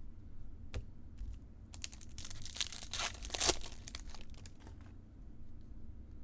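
A foil trading-card pack wrapper being torn open and crinkled: a burst of rustling a little after two seconds in that peaks in a sharp rip about three and a half seconds in. Scattered light clicks of cards being handled around it.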